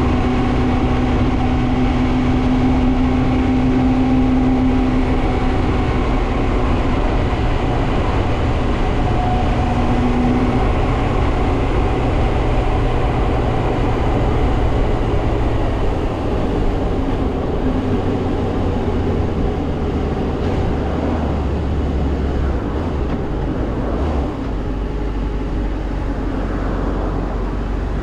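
Suzuki GSR400's inline-four engine with stock exhaust, running under way on the road. It holds a steady engine tone for the first few seconds, then goes lower and less steady from about halfway.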